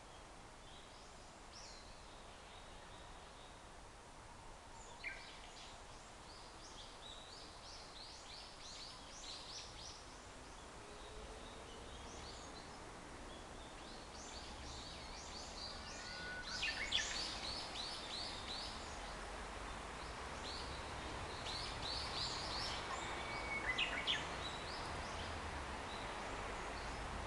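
Japanese bush warbler (uguisu) singing its song three times: each phrase is a held whistle that breaks into a quick flourish, about five seconds in, near the middle, and about two-thirds through. Many short high chirps run between the phrases.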